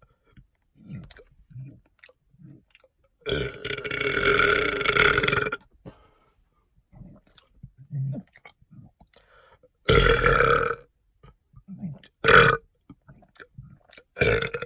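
A person burping deliberately, four times: a long burp of about two seconds, a shorter one about ten seconds in, a brief one soon after, and another starting at the very end. Faint mouth noises fill the gaps.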